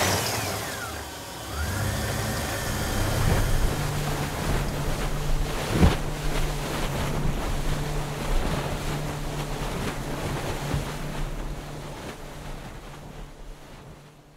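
Motorboat engine starting up and then running steadily, with the rush of water and wind, fading out near the end. A single sharp knock about six seconds in.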